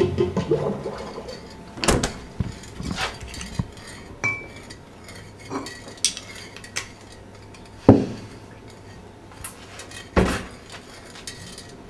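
Breakfast-table crockery and cutlery: cups, plates and jars set down and a spoon clinking, as a handful of separate knocks and clinks with quiet gaps between. The loudest knock comes about eight seconds in and another about ten seconds in.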